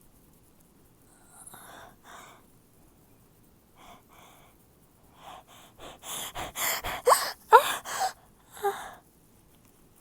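A woman's sneezing fit: a few soft gasping breaths, then quickening, catching inhales as a sneeze builds, and a run of loud, moany sneezes with the voice sweeping in pitch, followed by one more near the end.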